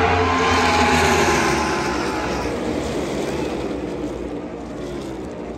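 Race cars passing at speed. The engine note is loudest about a second in, then falls slightly in pitch and fades away.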